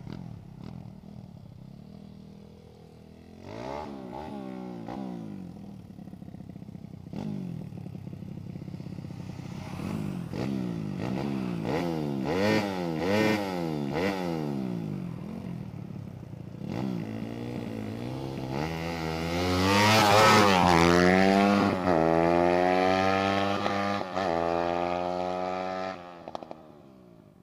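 Supermoto motorcycle engine being test-run after a gearing (sprocket) setup: revved in quick blips while standing, then accelerating hard, loudest about twenty seconds in, and climbing in pitch again and again through several upshifts as it pulls away, until the sound cuts off near the end.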